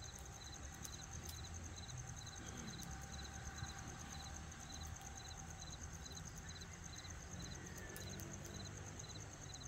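Night insects chirping in a steady rhythm, about two chirps a second, over a continuous high trill, with a few sharp crackles from the burning campfire and a low rumble beneath.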